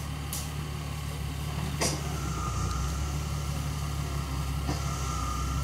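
Off-road Jeep engine running steadily at low revs as it crawls toward the edge of a steep downhill slope. There are a couple of sharp cracks, and a steady high whine joins about two seconds in.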